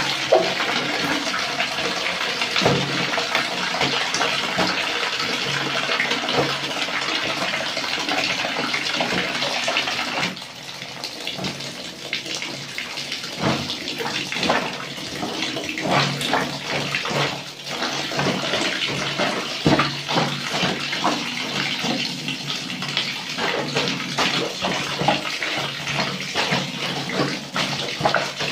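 Water running from a tap into a plastic basin while bare feet splash in soapy water. About ten seconds in the steady pouring gets quieter, and irregular sloshing splashes follow as feet tread a basin full of wet laundry.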